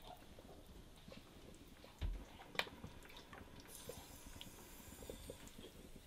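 Faint handling of glass canning jars: a soft thump about two seconds in, a sharp click just after, and light scattered ticks, with a faint hiss in the second half.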